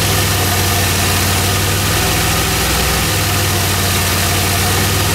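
DeLorean DMC-12's PRV V6 engine idling steadily as it warms up.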